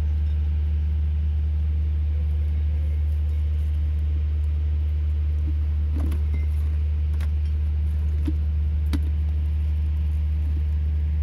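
A steady low rumble, with a few light clicks and ticks on top of it around the middle of the stretch.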